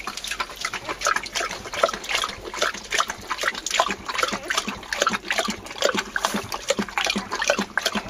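Kangal dog lapping milk from a bowl: a quick, uneven run of wet laps and slurps, several a second.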